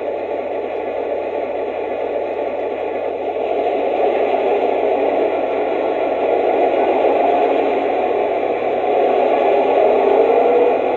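Lionel GE U-33C's RailSounds diesel engine sound effect playing through the locomotive's newly fitted small 8-ohm speaker: a steady, noisy engine sound that grows louder about four seconds in. It plays cleanly now, the old crackling from the failed speaker gone.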